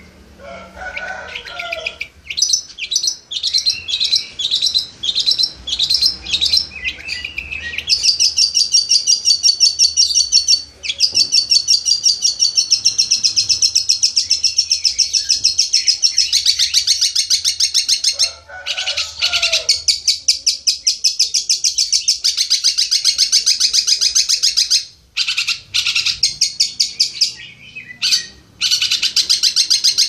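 Long-tailed shrike (cendet) singing. It starts with a string of short, separate high phrases, then moves into long fast trills of rapidly repeated high notes lasting several seconds each. Brief pauses break the trills, and a few lower notes come near the start and about two-thirds through.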